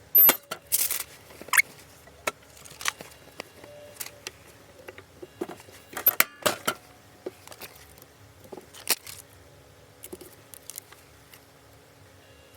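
Irregular clicks, light knocks and rustling from hands handling shirts and transfer materials during t-shirt pressing work, with a loud burst of rustling near the start and scattered sharper clicks later.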